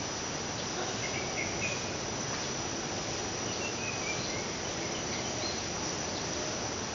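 Steady insect trilling, with a few faint short chirps over it.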